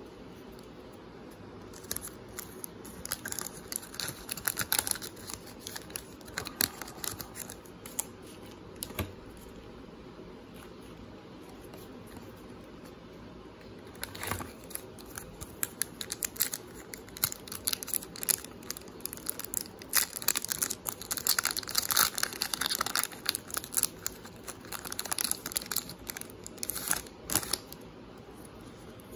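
Foil trading card pack wrapper crinkling and tearing as it is opened by hand. Scattered crackles come first, then after a short pause a denser run of crinkling from about halfway through that stops just before the end.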